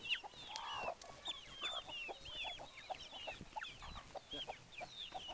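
Chickens calling: many short, high chirping calls overlapping, with short lower clucks among them.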